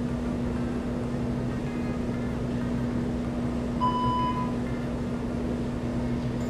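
Steady low hum of the gym's air handling, with one short electronic beep about four seconds in.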